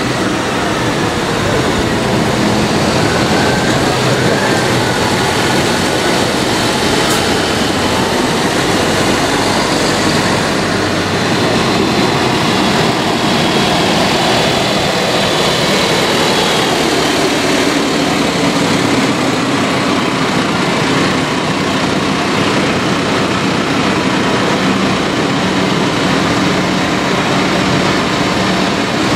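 Large modern tractors, including a Valtra and a Fendt, driving past one after another, their diesel engines running steadily under a constant hiss of big tyres on wet tarmac.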